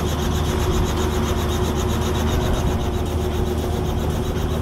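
Small two-blade helicopter running on the pad with its rotor turning: a steady drone with a fast, even blade chop.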